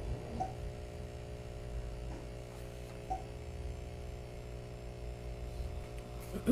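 Steady low electrical hum, with a few faint small sounds over it.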